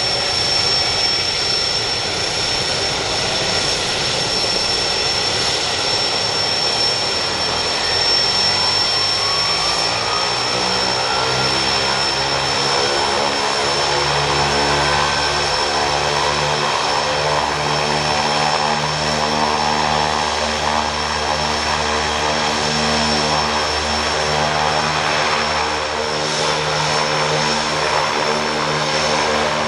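Quest Kodiak 100's Pratt & Whitney PT6A turboprop running on the ground, with a steady high turbine whine over it. The pitch rises about ten seconds in, and after that the propeller runs at a steady, even beat.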